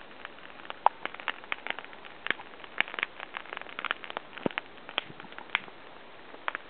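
Wood fire crackling: irregular sharp snaps and pops of burning wood, with one louder pop a little under a second in.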